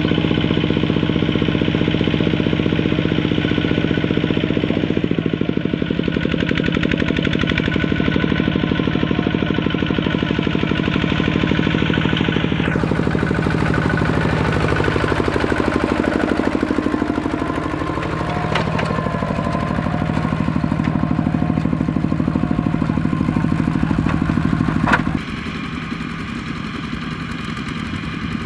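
Single-cylinder diesel engine of a two-wheel walking tractor running under load as it hauls a trailer through mud, a steady chugging beat. About halfway the engine note sags and then climbs back up, and near the end, after a sharp knock, the engine sound becomes quieter.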